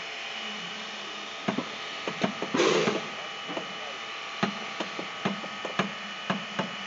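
Slow-rolling two-foot-gauge wooden boxcar, with irregular sharp knocks and clicks from its running gear and body. A short hiss comes a little under three seconds in.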